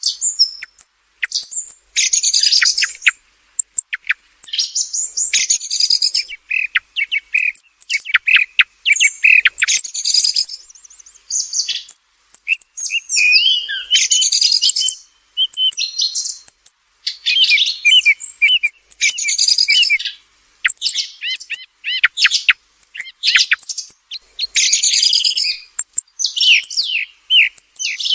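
Song thrush singing: a string of high, varied phrases of quick whistles and trills, each a second or two long, separated by short pauses.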